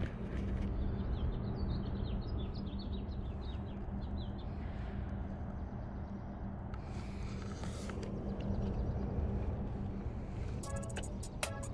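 Steady low rumble of wind and tyres from a bicycle riding along a paved path. For the first few seconds a small bird chirps over it in a quick run of short notes, and music comes in near the end.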